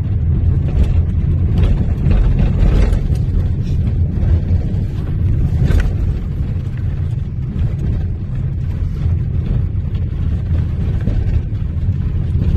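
Strong sandstorm wind buffeting the microphone: a loud, heavy low rumble that swells and eases in gusts.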